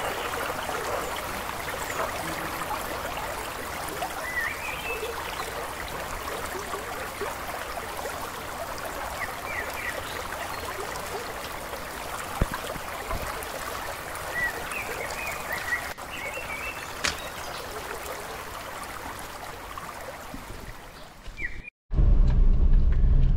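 Steady rush of running water, with a few short high chirps over it. It cuts off suddenly near the end.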